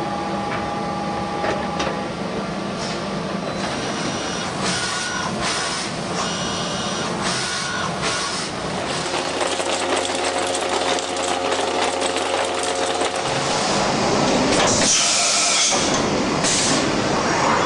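Matsuura Maxia CNC horizontal machining centre running: mechanical whirring with scattered clicks, a steady hum in the middle, and a loud hiss lasting about a second near the end, followed by a shorter one.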